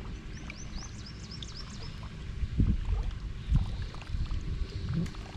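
Low knocks and thumps on a fishing boat over water, starting about two and a half seconds in, while a bird sings a quick run of short, high, down-slurred chirps in the first two seconds.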